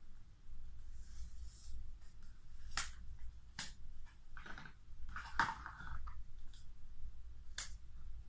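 Telescopic selfie monopod being handled and extended: scraping rustles of the tube sections sliding, and several sharp clicks as the sections and fittings knock and lock.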